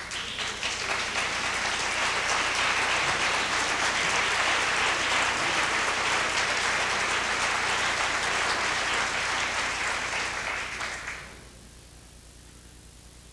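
Concert-hall audience applauding, then dying away about eleven seconds in to a quiet hall.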